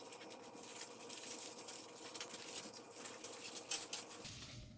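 A paper boat being folded and creased by hand, the sheet crinkling and rustling in quick, irregular crackles.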